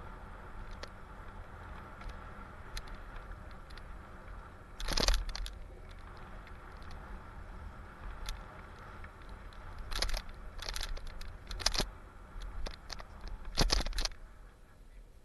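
Mountain bike riding down a dirt single trail: a steady rumble of tyres and wind noise, broken by sharp rattling clatters of the bike's chain and parts as it hits bumps. The loudest clatters come about five seconds in, in a quick run about ten to twelve seconds in, and near the end.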